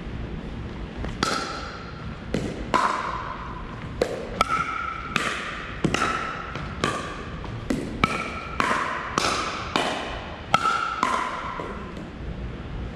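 A pickleball rally: paddles striking the hollow plastic ball back and forth, each hit a sharp pock with a short ring and a hall echo. About fifteen hits come roughly half a second apart, stopping about eleven seconds in.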